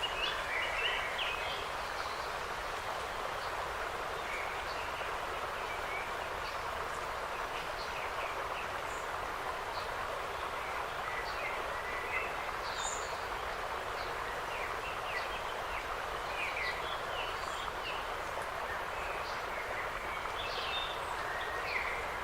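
Forest ambience: a steady, even hiss of wind in the trees, with scattered short bird chirps and calls throughout.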